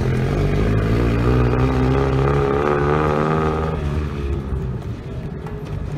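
Lowered vintage Datsun 510's engine revving as the car pulls away, climbing a little in pitch for about three seconds. The engine note drops away suddenly near four seconds in, leaving a fainter, rougher rumble.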